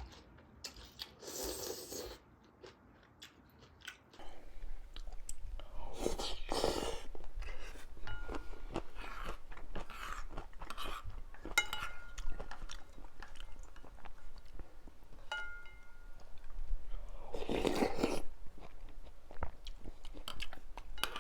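Close-miked eating of mala ramyun: wet chewing and crunching with many small mouth clicks, and noodles slurped in three longer pulls, about a second and a half in, around six seconds, and near eighteen seconds.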